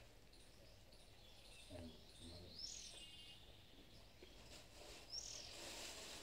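Faint bird chirps: a few short, high calls, one about two and a half seconds in and another near the end, over quiet outdoor ambience.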